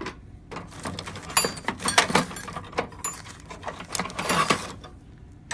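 Small metal hand tools clinking and clattering against each other and the toolbox drawer as they are picked up and set down, in a run of short, sharp knocks.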